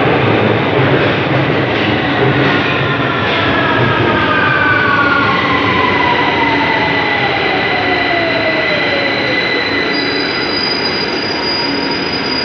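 London Underground tube train slowing as it pulls into the platform: a loud, steady rumble of wheels on rail with whining tones that fall in pitch as it brakes, and a steady high-pitched squeal from about halfway through.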